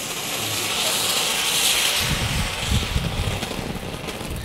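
Firework ground fountain hissing steadily as it sprays sparks, swelling to its loudest about a second and a half in. Wind rumbles on the microphone from about two seconds in.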